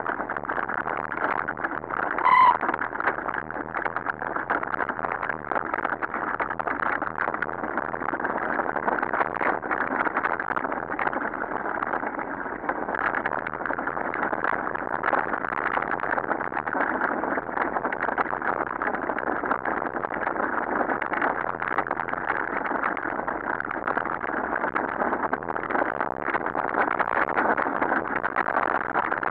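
Mountain bike rolling downhill over a dirt and gravel road: a continuous rattling crunch of tyres and bike over the rough surface, with a short high squeal about two seconds in.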